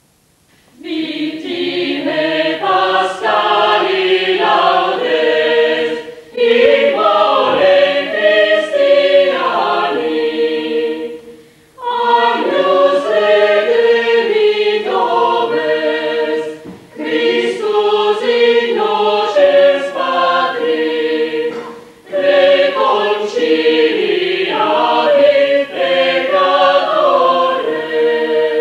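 Women's choir singing, in phrases of about five seconds with short breaks between them.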